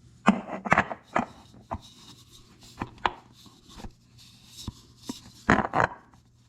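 Irregular clicks, taps and scrapes of a spin-on oil filter being worked onto its threaded housing on a compact tractor's diesel engine, the filter not catching the thread. A cluster of knocks comes at the start, a few single taps follow, and a loud double knock comes near the end.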